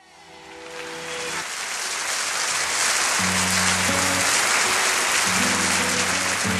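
Audience applause over the opening of a live band's instrumental introduction, with sustained low instrument notes shifting in pitch underneath. The sound fades in from silence over the first couple of seconds.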